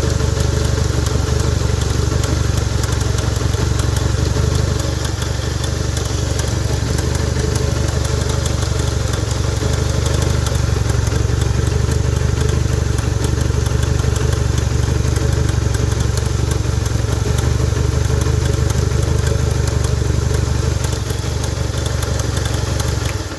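Honda 160 single-cylinder motorcycle engine idling steadily with its cam-chain cover off, the chain guide shaking. The noise sounds like cam-chain knock, but its cause is a worn cam-chain tensioner letting the chain run slack.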